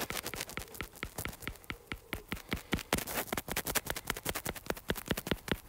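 A stylus tip tapping and flicking on an iPad's glass screen, drawing rapid short hair strokes: a run of quick light clicks, about five or six a second.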